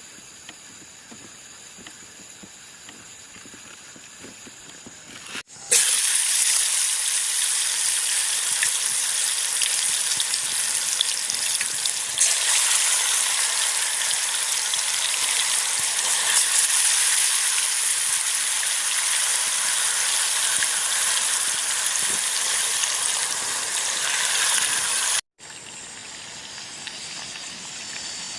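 Loud, steady hiss with little low end. It starts abruptly about five and a half seconds in and stops sharply a few seconds before the end, with a much fainter hiss on either side.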